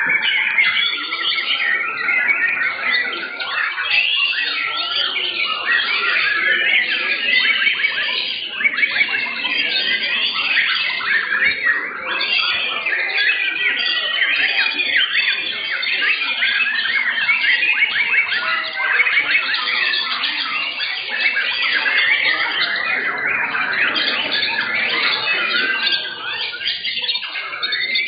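Many white-rumped shamas (murai batu) singing at once, a dense, unbroken tangle of overlapping whistles and chirps.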